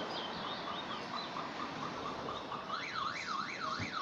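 Car alarm going off: a run of quick evenly spaced beeps, then from near three seconds a warbling siren sweeping up and down about twice a second. A few high bird chirps sound near the start.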